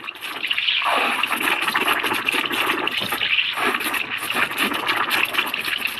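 Steam from the wand of a Morphy Richards Europa coffee maker bubbling and hissing into a mug of chilled milk, frothing it into foam.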